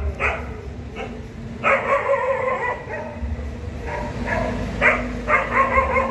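Dogs barking and yelping in short runs: a couple of quick barks at the start, a longer run about two seconds in, and another cluster near the end.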